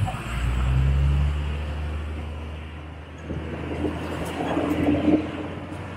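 A large vehicle's engine rumbling low, loudest about a second in and fading away by about three seconds, over city traffic noise.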